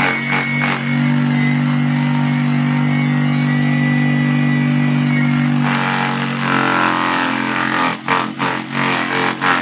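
A homemade wooden grass chopper driven by a 125-watt electric motor, running with a steady hum whose tone shifts about six seconds in. Near the end, stalks of grass fed into the chute are chopped in a quick run of sharp cuts.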